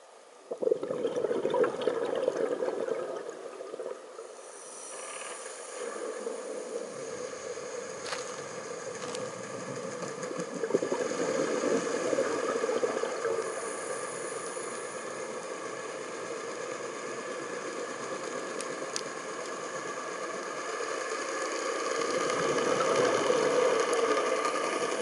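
Underwater sound from a diving camera: a steady watery rush with a few scattered clicks, starting abruptly about half a second in.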